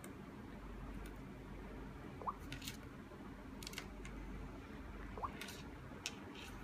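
S Pen stylus tapping and brushing on a Samsung Galaxy Note phone's touchscreen: a few faint, scattered taps and short scratchy strokes. Two short rising squeaks stand out, about two seconds in and again about five seconds in.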